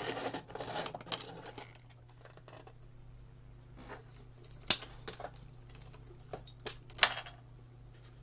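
Handling noise from work on a dismantled electronic unit: light rustling and small taps at first, then a few sharp clicks, the two loudest about five and seven seconds in, over a steady low hum.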